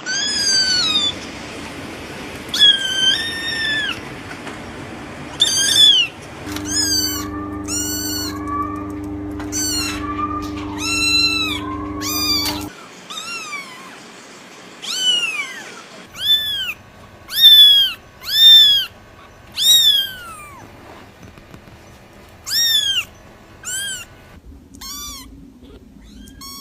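Kittens meowing over and over: many short, high-pitched meows, each rising then falling, some loud and some faint. A steady hum runs beneath the calls for several seconds in the middle.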